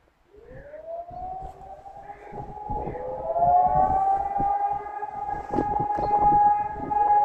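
Civil defence siren winding up from rest, its pitch rising for about three seconds and then holding a steady howl. A second, lower rising tone joins about two and a half seconds in. This is the monthly siren test signal.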